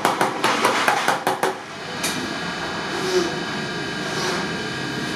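A hammer tapping quickly on the lid of a sheet-iron milk can, about six metal strikes a second, which stop about a second and a half in. A steady hiss follows.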